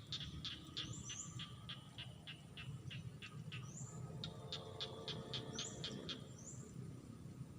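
Wild animal calls: rapid series of short, sharp notes at about five a second, in bouts, with a few brief upward chirps mixed in, over a low steady rumble.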